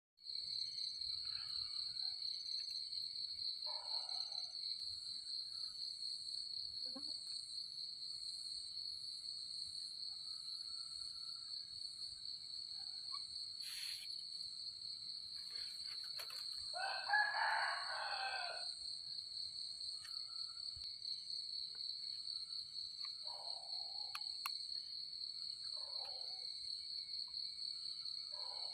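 A steady high-pitched chorus of night insects runs throughout. A rooster crows once, loudly, about 17 seconds in, and there are fainter crows from farther off several more times.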